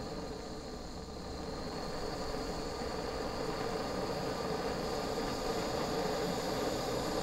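Naturehike mini folding gas stove burning on an iso-butane canister: the steady hiss of the burner flame, growing gradually louder as the valve is turned up.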